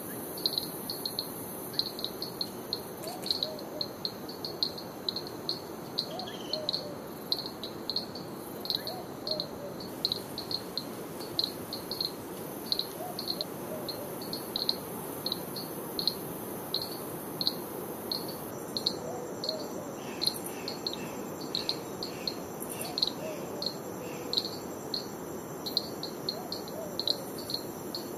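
Tropical forest ambience: insects chirping in quick, short, high chirps, two or three a second, over a steady rushing noise and a high hiss. A soft low rising-and-falling call recurs every few seconds.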